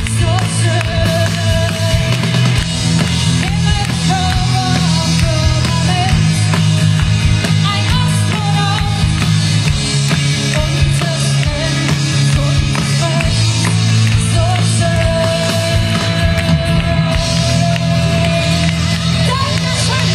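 Live rock band playing loudly through an open-air stage PA, heard from within the audience: heavy bass and drums under a melody line, with one long held note about two-thirds of the way through.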